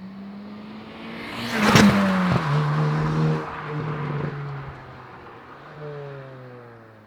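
Hyundai i20 N's 1.6-litre turbocharged four-cylinder drives past under acceleration, rising in pitch to its loudest about two seconds in, with a rush of noise as it passes. Its pitch then drops and it fades as it pulls away.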